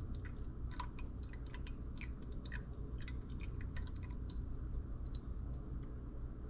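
Irregular light ticks and pops from a pot of hot, thickened soup just off the heat, several a second, as a thin stream of beaten egg is poured in. A steady low hum runs underneath.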